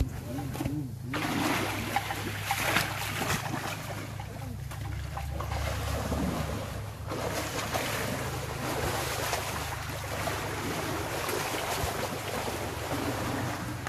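Wind noise on the microphone: a fluctuating rushing sound over a steady low rumble.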